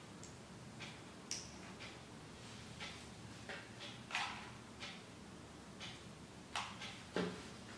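Faint, irregular small clicks and rustles of hands handling insulated wires and their connectors, with one louder knock about seven seconds in.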